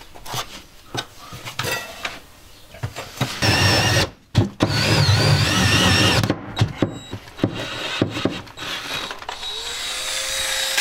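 Bostitch cordless drill driving a 5-inch hole saw into the wooden floor. A few knocks and clicks come first. About three seconds in there are about three seconds of loud cutting with a wavering high whine, briefly interrupted. Near the end the drill's motor spins up again with a rising whine.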